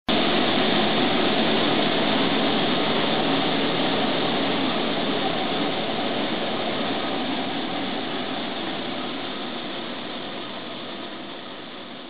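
Rice-processing machinery running with a steady, noisy mechanical hum that slowly fades away.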